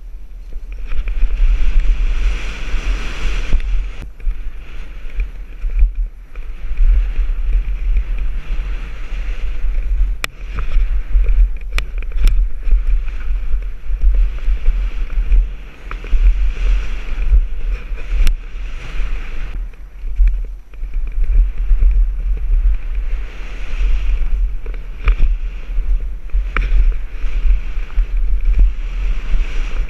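Wind buffeting the microphone during a mountain bike ride: a heavy, uneven rumble with rushing noise that swells and fades, broken by a few sharp clicks and rattles.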